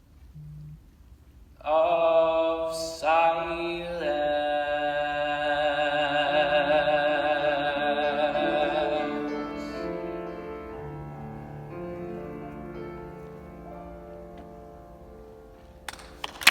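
A singer's long final sung note, held with a wavering vibrato over instrumental accompaniment, swelling a couple of seconds in and then fading as the song ends. A burst of noise starts right at the end, the start of applause.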